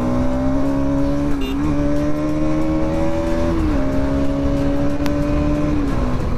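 Bajaj Pulsar NS200's single-cylinder engine running hard under the rider on the move. Its note climbs slowly, dips briefly about a second and a half in and again around three and a half seconds, and eases off near the end, over low wind rush.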